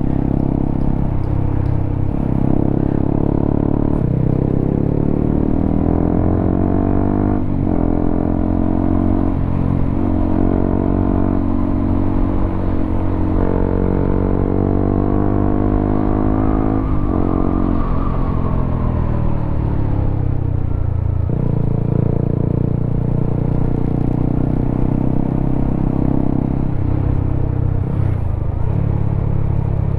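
Honda CBR motorcycle engine through a WRX K3 oval aftermarket silencer on the stock header, ridden under way: the pitch climbs several times, dipping sharply at each gear change, then falls away as the bike slows after about eighteen seconds.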